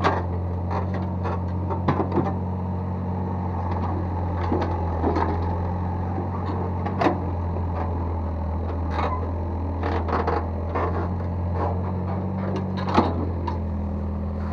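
Excavator engine running steadily with a low hum, with scattered knocks and scrapes as it works the soil, the loudest knock near the end.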